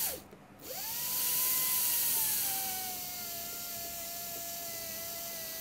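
Slow-speed dental handpiece spinning a size 2 Gates Glidden drill as it shapes the coronal part of a simulated root canal in a resin training block. A steady whine starts about half a second in, winds up, then settles a little lower in pitch and holds.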